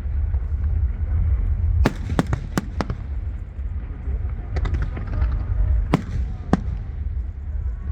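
Fireworks bursting overhead: a continuous low rumble of booms with sharp cracks in clusters, a few about two seconds in, more around five seconds, and single cracks near six and six and a half seconds.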